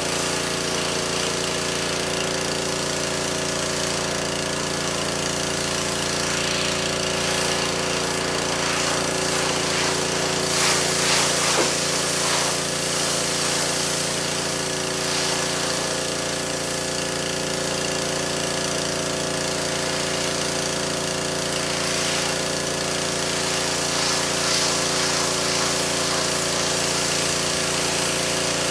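Pressure washer running steadily: a constant machine hum under the hiss of the water jet spraying a carpet. The spray swells louder a few times, most around eleven seconds in.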